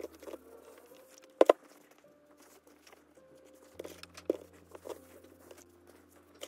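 Handling sounds of ironing fabric: a clothes iron and a folded cotton waistband moved on a wool pressing mat, with two sharp knocks about one and a half seconds in and a few softer knocks and rustles later. Faint background music with held notes runs underneath.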